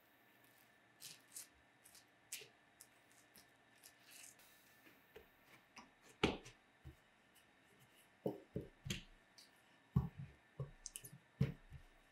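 Faint kitchen handling noises: cling wrap crinkling as it is pulled off the dough balls, then soft taps as a dough ball is pressed flat by hand on a silicone baking mat. From about eight seconds in, a wooden rolling pin knocks and bumps on the mat as it rolls the dough.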